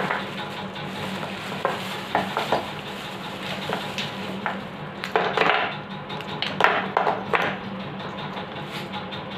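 Aluminium-can fan capacitors clinking and clattering as they are put down on a bench, in a cluster of knocks about five to seven and a half seconds in. A steady low hum runs underneath.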